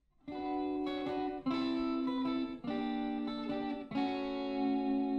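Guitar music: a chord struck about every second, the last one left ringing.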